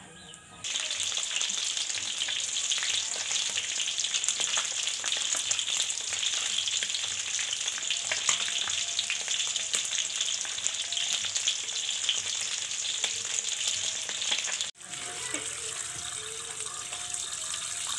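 Small whole fish sizzling and crackling in hot oil in a metal pan, a dense spitting hiss that starts abruptly. Near the end it cuts to water pouring and splashing over cucumbers and greens in a plastic basin.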